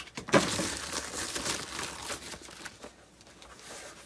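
Thin plastic wrapping and a foam sheet crinkling and rustling as they are pulled off a small server chassis by hand. There is a sharp knock about a third of a second in, and the crinkling dies down over the last second or so.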